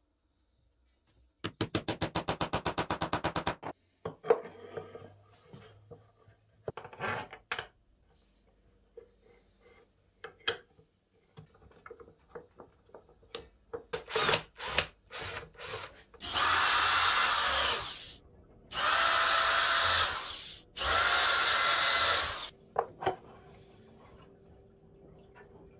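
Makita cordless drill run in three bursts of about one and a half to two seconds each, its motor whine rising as it spins up and falling as it stops. Earlier come a quick run of rapid ticks for about two seconds and scattered knocks of wood and parts being handled.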